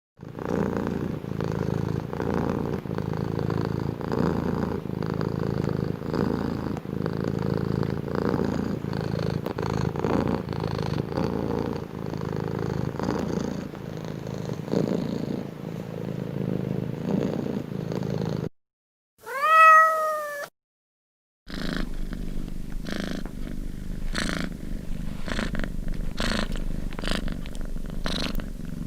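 Domestic cat purring steadily. After about 18 seconds the purring breaks off for a single loud meow that rises and then falls in pitch. Purring then resumes with a regular pulse about once a second.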